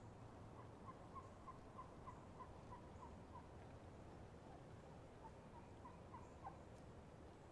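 Roosted wild turkey hens tree yelping: a faint run of about ten evenly spaced yelps, roughly three a second, then a shorter run of four or five yelps later on.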